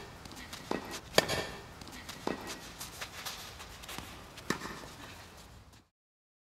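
A few sharp, irregular knocks over a faint background, fading out and cutting to silence near the end.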